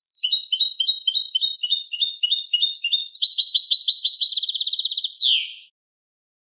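European goldfinch singing one unbroken song phrase of about five and a half seconds. It opens with a run of quick repeated two-note figures, speeds into a fast, even trill from about three seconds in, and ends on a single falling note.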